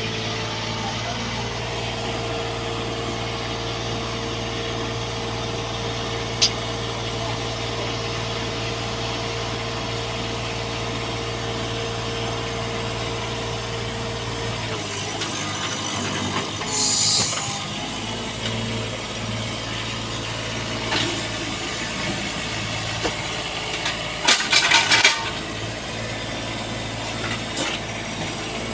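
Bobcat 322 mini excavator's diesel engine running steadily, its note shifting about halfway through. A sharp click sounds about six seconds in, a short hiss comes about seventeen seconds in, and a quick clatter of knocks follows about twenty-four seconds in.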